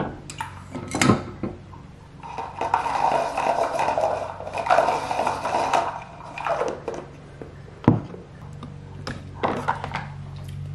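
Syrup pump pressed into a plastic tumbler for a pumpkin spice latte, with sharp plastic clicks and knocks from the pump and cup, and a dense noisy stretch of about four seconds in the middle. A low steady hum runs underneath.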